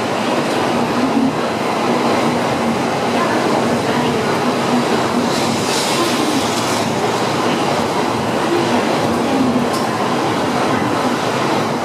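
Tokaido Shinkansen N700-series bullet train running past at the platform: a steady, loud noise of wheels on rail and rushing air, with extra hiss for about a second midway.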